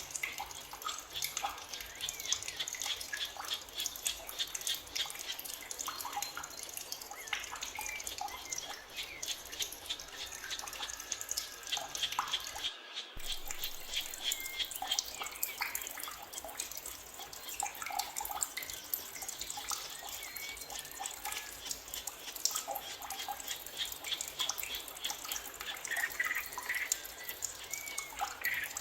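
Forest ambience of water dripping and trickling with dense fast ticks, and scattered short bird chirps. The sound cuts out for a moment about thirteen seconds in.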